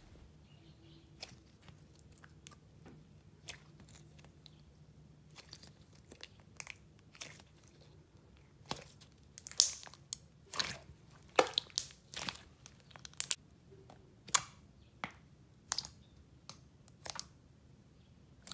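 Thick, icing-like white slime being squeezed, kneaded and poked by hand, giving sharp wet clicks and pops. The pops are sparse at first and come thicker and louder from about halfway.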